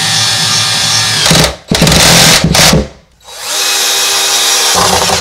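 Cordless drill driving screws in from the back of a wooden vanity front. A steady motor whine runs for about a second, then come two louder, rougher spells, a short pause, and another steady run.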